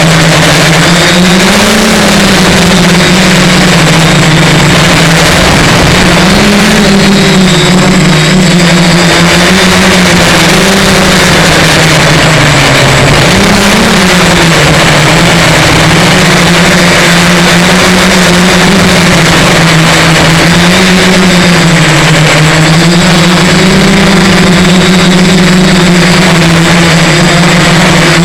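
Multirotor X-copter's electric motors and propellers droning loudly, the pitch wavering up and down every second or two, over heavy wind rush on the microphone in strong wind.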